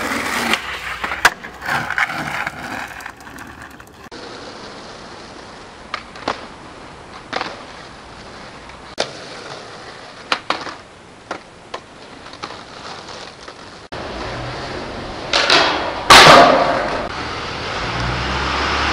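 Skateboard wheels rolling on concrete and asphalt, broken by repeated sharp clacks of the board popping, hitting ledges and landing. The loudest impacts come near the end.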